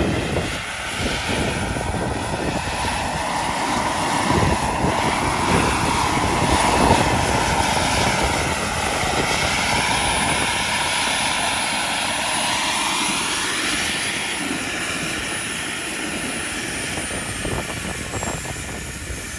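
Turbine-powered model helicopter (Vario Hughes 500 with a JetCat PHT 3 gas turbine) running at flight power: a high turbine whine over the rush of the main rotor as it hovers low and sets down on grass. The high whine starts to drop in pitch near the end.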